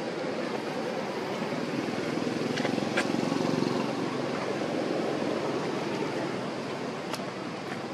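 Steady low rushing background noise that swells a little in the middle and eases off, with a couple of faint clicks; no monkey cries are heard.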